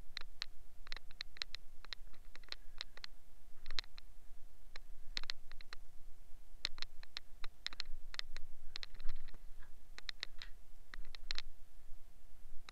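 Irregular light clicks, taps and scratches, a few a second, with a faint steady tone underneath.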